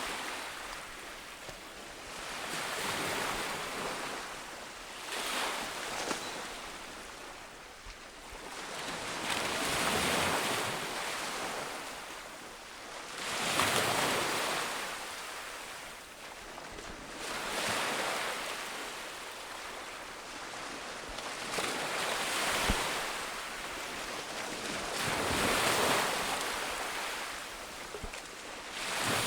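Ocean waves breaking on a beach, the surf rising and falling away again every few seconds, with wind.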